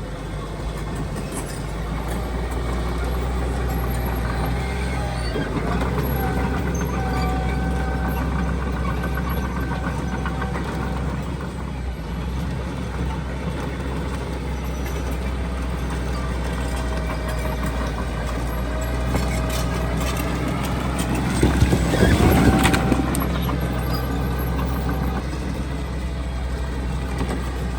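Heavy diesel earthmoving machinery running, a steady engine drone whose pitch drifts slowly up and down. About twenty-two seconds in there is a louder rush of noise lasting a second or two.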